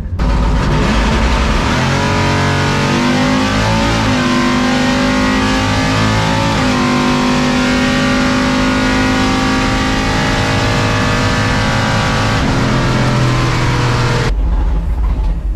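A 700 hp C10 pickup drag truck's engine running at full throttle down the drag strip, heard from inside the cab. Its pitch climbs and drops back a few times in the first seven seconds, then holds steady until the sound cuts off suddenly near the end.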